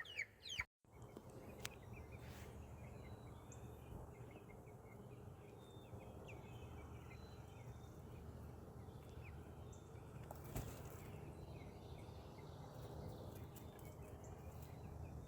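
Faint bird chirps over a steady low background hum.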